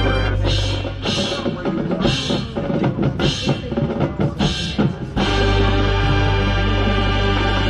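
High school marching band: the drum line plays a percussion break for about five seconds with drums and about six loud crashing accents, then the full band comes back in with a loud sustained chord.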